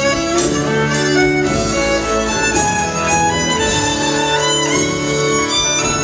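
Fiddle playing a melody of held notes with some sliding pitches over a live band with drum.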